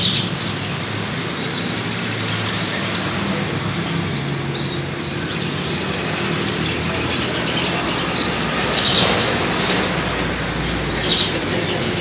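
A flock of caged budgerigars chirping and chattering in high, quick twitters, busiest in the second half, over a steady background of traffic noise.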